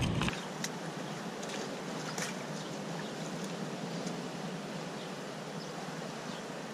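Seawater washing and trickling among boulders in a low-tide rock pool: a steady rush with scattered faint ticks and small splashes.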